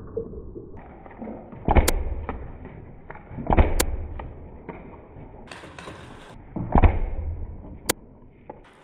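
Paintball markers firing during a game: three loud pops about two, three and a half and seven seconds in, with sharp high cracks among them.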